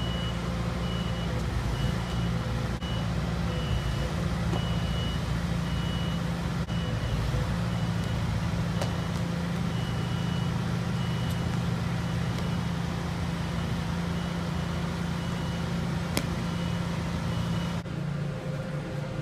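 A vehicle's reversing alarm beeping steadily, a short high beep about every three-quarters of a second, over a steady low engine hum. There is one sharp click about three-quarters of the way through, and the beeping stops near the end.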